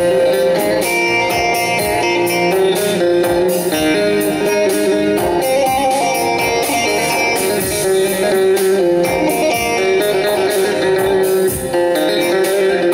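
Bağlama (long-necked Turkish saz) plucked with a plectrum in a fast instrumental passage of a Turkish folk song, a dense run of quick notes without singing.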